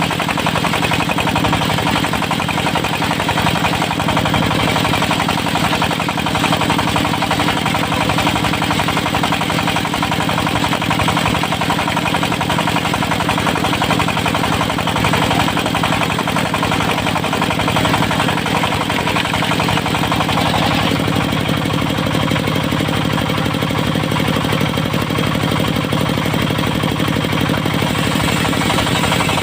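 Diesel-powered portable circular sawmill running steadily under load with a rapid knocking beat as its disc blade saws a teak log. The sound shifts about twenty seconds in.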